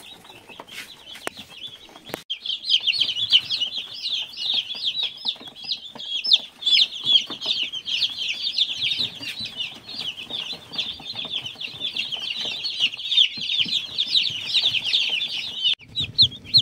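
A brood of broiler chicks peeping together: a dense run of many short, overlapping high chirps that sets in about two seconds in and goes on, stopping for a moment near the end.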